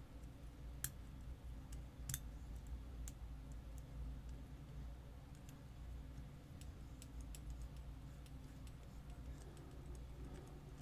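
Scattered small clicks of metal tools and lock parts being handled while a lock is taken apart, the clearest three in the first few seconds, over a steady low hum.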